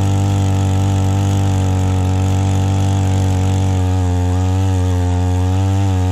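Petrol post-hole digger engine running steadily at high revs; about four seconds in its pitch begins to waver slightly.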